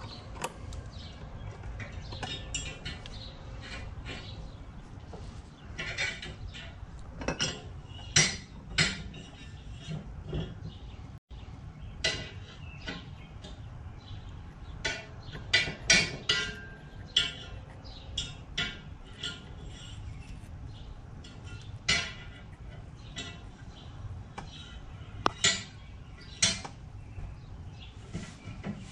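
Scattered clicks, taps and light metallic clinks of small tools and metal parts being handled during soldering, over a steady low hum.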